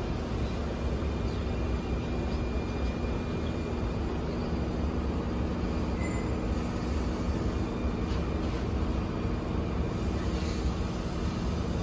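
Steady low rumble of outdoor background noise with a faint hum running through it.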